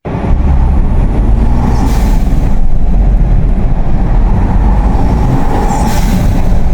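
Third-generation Toyota Tundra's twin-turbo V6 running loud, heard through an aftermarket SXTH Element cold air intake, with brief hissing rushes about two seconds in and near the end.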